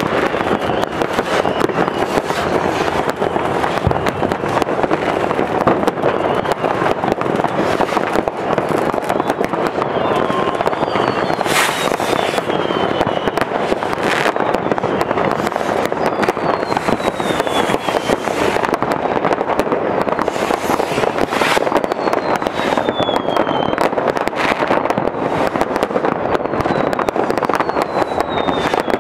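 Many fireworks rockets and firecrackers going off at once in a dense, continuous crackle of pops and bangs, with a few sharper bangs and several falling whistles.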